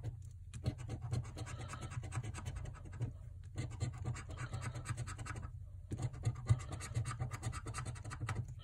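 A coin scraping the coating off a scratch-off lottery ticket in quick, rapid strokes, stopping briefly three times.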